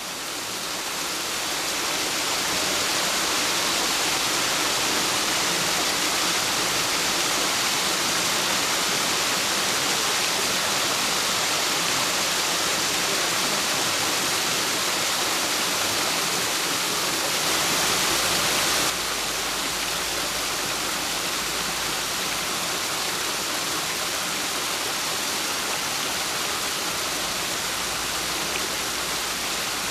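Water rushing steadily through a river lock's sluices. It builds over the first couple of seconds, then holds an even rush, with a slight change in its tone about 19 seconds in.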